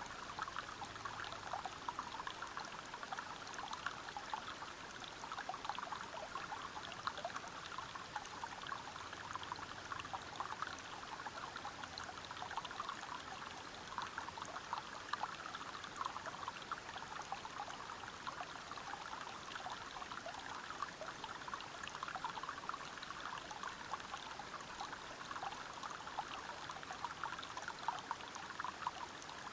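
River water running over rocks: a steady splashing and trickling, busy with many small splashes.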